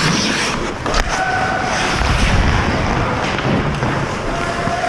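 Ice hockey play: skates scraping and carving on the ice, with a sharp click of a stick or puck about a second in.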